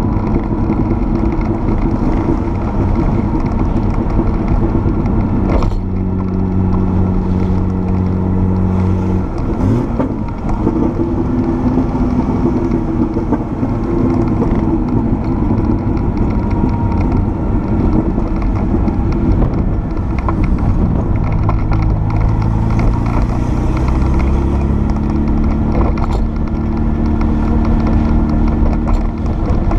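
Porsche 930 Turbo's air-cooled turbocharged flat-six running at track pace, heard from inside the cabin over steady road noise, its pitch changing in steps several times as the revs rise and fall.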